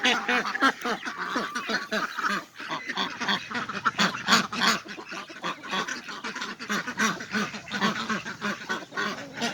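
Flock of domestic ducks quacking, many short calls overlapping in a continuous chatter.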